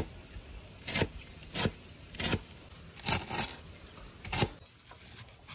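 Knife chopping on a wooden cutting board: about seven separate sharp chops at an uneven pace, roughly one every half second to a second.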